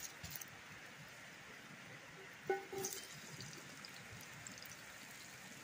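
Chopped vegetables tipped off a plate into a hot oiled skillet over a campfire, with a faint steady hiss and scattered small sizzling pops. A short knock about two and a half seconds in.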